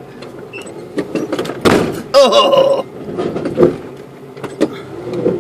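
Dodge Raider crawling over rocks, heard from inside the cabin: its engine runs low and steady under repeated sharp clunks and thuds from the body and suspension on rock. About two seconds in, a loud jolt is followed by a short high-pitched cry.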